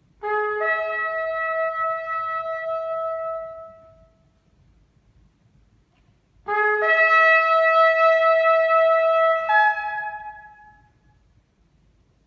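Shofar sounding two long blasts, the second louder. Each starts on a brief lower note and breaks up to a higher held note, and the second shifts pitch again shortly before it fades.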